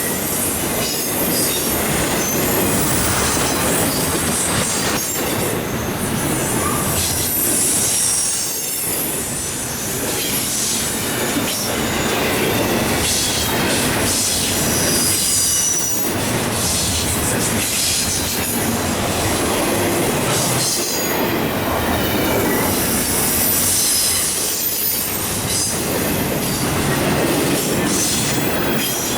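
An intermodal freight train's cars rolling past close by: a loud, steady rumble of steel wheels on rail, with repeated clacking and high wheel squeal coming and going.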